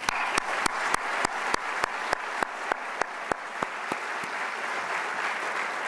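Audience applause that starts suddenly, with one person's close, sharp hand claps, about three a second, standing out over it; the close claps stop a little over four seconds in and the applause eases off near the end.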